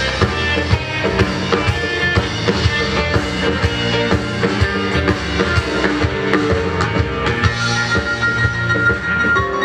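Live soul band playing, with a drum kit keeping a steady beat under electric guitar, bass and keyboards.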